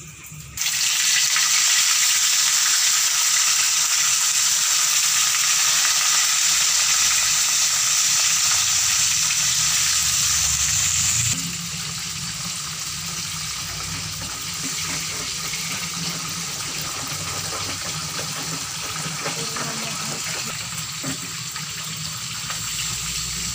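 Water running steadily from a tap into a stainless-steel sink. It comes on suddenly about half a second in as a loud hiss, then runs more quietly from about eleven seconds in.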